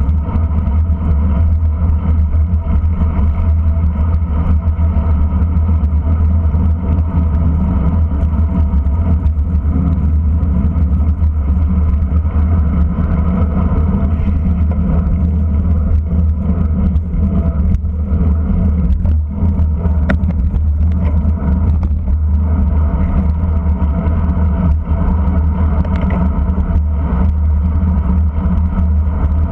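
Steady, loud wind and road rumble on the microphone of an action camera carried along on a racing bicycle.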